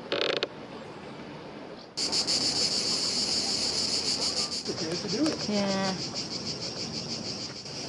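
Cicadas buzzing in a loud, steady, fast-pulsing chorus that starts suddenly about two seconds in.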